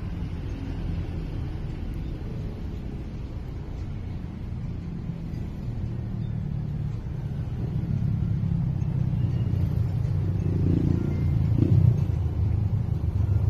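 Low rumble of a motor vehicle engine running nearby, growing louder from about eight seconds in and peaking near the end.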